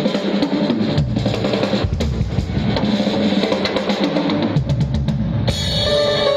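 Tama drum kit playing busy, rapid drumming with bass drum, snare and cymbals in a live fusion band. About five and a half seconds in the drums stop and sustained sitar notes ring on.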